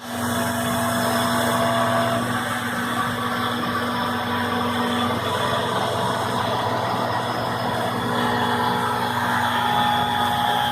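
CNC router cutting MDF, its spindle and stepper motors running steadily, muffled inside a styrofoam-and-cardboard acoustic enclosure. Several steady whining tones sit over a dense cutting noise, and a low hum drops out about five seconds in.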